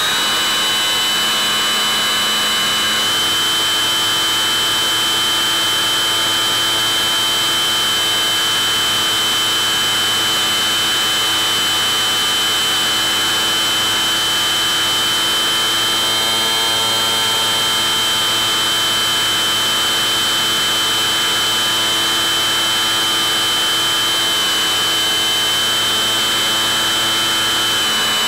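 Electric motor and propeller of a Bixler 3 RC plane running at steady throttle under autopilot: a constant high whine of several steady pitches over a hiss.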